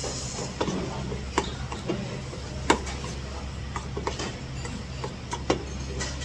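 Metal spoon clinking and scraping in a stainless steel bowl as bibimbap is stirred, with irregular clinks, one sharper knock about two and a half seconds in. A steady low hum runs underneath.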